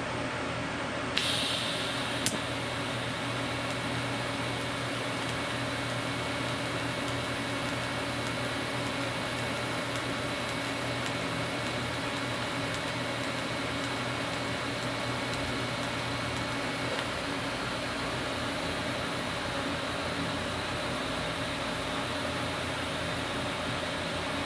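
TIG welding arc from an Everlast 255EXT welder, struck about a second in with a sudden high-pitched crackle and a sharp click. It then hisses steadily while a continuous bead is run with the filler rod dabbed into the puddle, and stops near the end.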